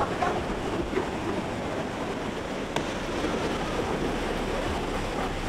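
Ocean surf washing steadily onto a beach, with wind on the microphone; a short click about three seconds in.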